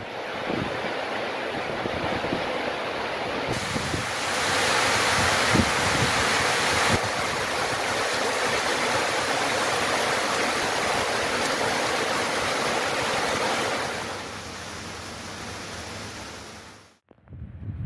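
Heavy downpour: a steady hiss of pouring rain. It grows louder about four seconds in, softens twice after that, and cuts off near the end.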